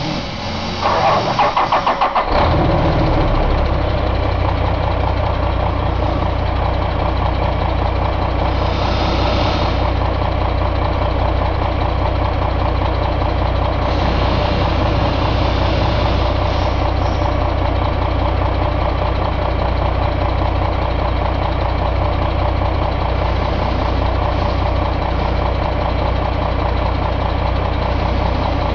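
Caterpillar C13 inline-six diesel engine cranking on its starter with a quick rhythmic chug. It catches about two seconds in and settles into a steady idle.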